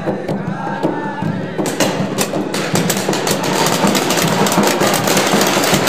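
Music playing, joined about two seconds in by the rapid popping of several paintball markers firing at once, building into a dense clatter.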